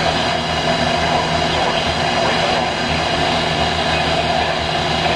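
Weather radio receiver giving out steady static hiss with a faint low hum between broadcast messages.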